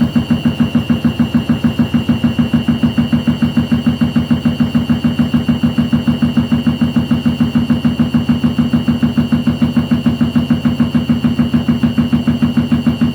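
Hoover washing machine running, a loud hum that pulses evenly about six times a second, like a drum turning at speed, with a steady high whine over it.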